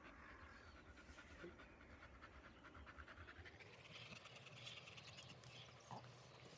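Black Labrador retriever panting faintly in quick, even breaths.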